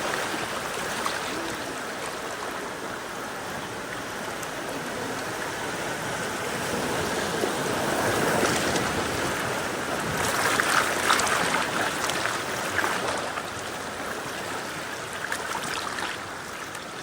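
River water rushing and splashing around a bamboo raft as it drifts downstream, swelling louder about halfway through.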